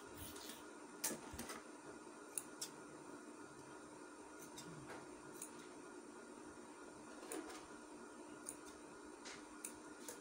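Scissors and fabric being handled at a sewing machine: a scattering of faint clicks and small snips over a steady faint hum, with a louder click at the very end.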